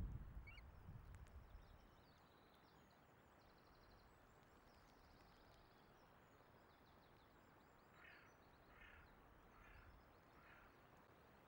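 Wind buffeting the nest camera's microphone with a low rumble that dies away over the first two seconds, leaving a faint steady hiss of wind and rain. Faint small-bird song sounds high up, and near the end a bird gives four short calls, a little under a second apart.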